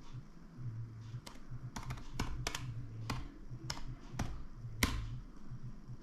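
Typing on a 2012 MacBook Pro's laptop keyboard: a run of about ten separate key clicks at an uneven pace, the last one the loudest.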